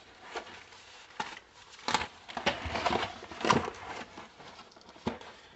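Packaging being handled and rummaged through in a box: an irregular string of light knocks, taps and rustles.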